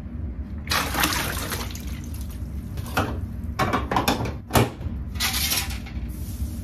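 Water pouring and splashing in several bursts: a longer pour near the start, then short splashes and another brief pour.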